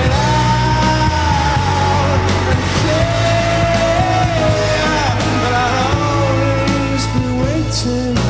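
Rock band playing live, with singing in long held notes over electric guitar, bass and drums.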